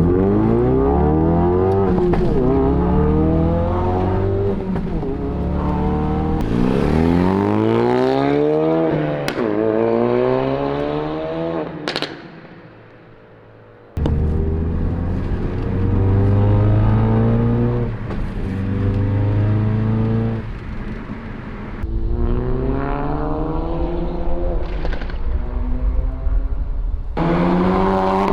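Mountune-tuned Ford Focus RS Mk3's turbocharged four-cylinder with a Scorpion cat-back exhaust, accelerating hard through the gears: the engine note climbs in pitch and drops at each upshift, again and again. About halfway through the sound cuts off suddenly and stays quiet for a couple of seconds before the next pull.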